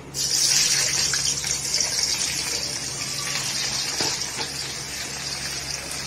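Sliced onions hitting hot oil in an aluminium kadai: a sudden loud sizzle that eases into a steady frying sizzle.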